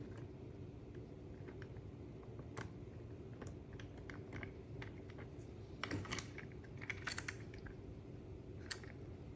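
Scattered light clicks and taps of small acrylic and plastic parts from a wind-up car kit being handled, with a quick cluster of clicks about six to seven seconds in, over a steady low hum.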